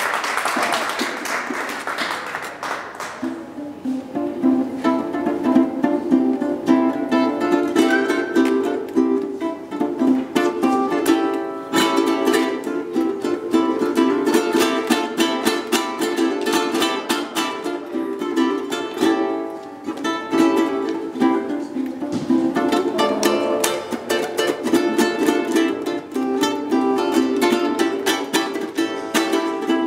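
Solo ukulele playing a quick, busy run of plucked notes. Applause fades out under the first few notes.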